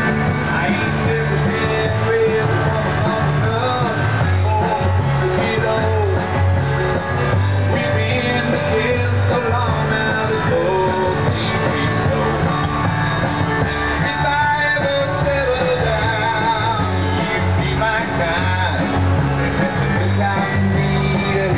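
Background rock music with singing and guitar over a steady, pulsing bass line.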